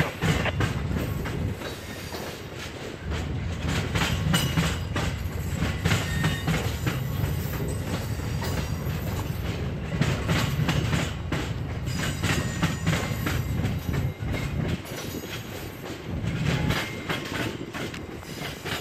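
Amtrak passenger coaches rolling past at speed, their wheels clicking over rail joints, with wind buffeting the microphone.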